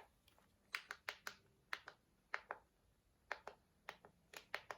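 Buttons on an Eton Zoneguard weather radio being pressed, a string of about a dozen faint, irregular clicks while the menu is worked through.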